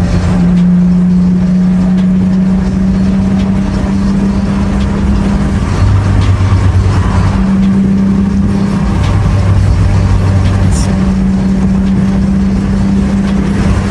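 Mitsubishi Eclipse engine running through an aftermarket Invidia N1 catback exhaust, heard from inside the cabin while driving: a loud, steady low exhaust drone whose pitch shifts up and down a few times.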